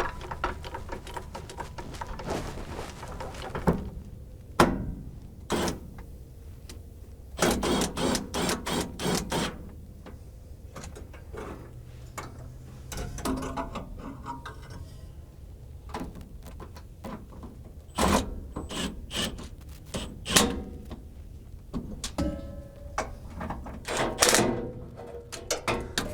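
Intermittent clanks, knocks and rattles of a pickup's fuel tank and its mounting hardware being handled and its bolts started by hand, with a quick run of several knocks near the middle.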